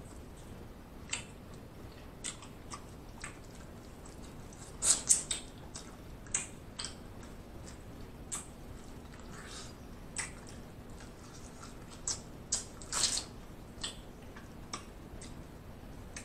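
Close-miked eating of king crab legs: crab shell cracking and snapping as the meat is picked out, with wet mouth sounds and chewing. It comes as scattered sharp clicks, with louder clusters about five seconds in and again near thirteen seconds.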